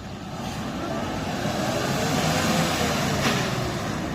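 Self-propelled peanut pickup harvester's engine running and building up gradually as the machine pulls away in high gear.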